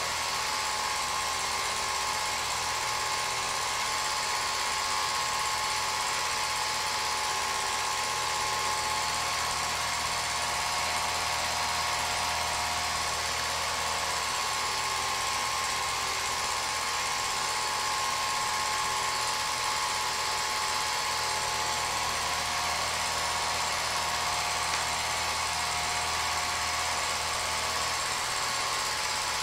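Film projector running steadily: an even motor whir with hiss and a low hum, no speech.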